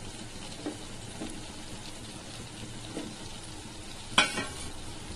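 Drumsticks, tomato and onion sizzling gently in a pan as raw mango pieces are added, with a few soft knocks and one sharp clatter about four seconds in.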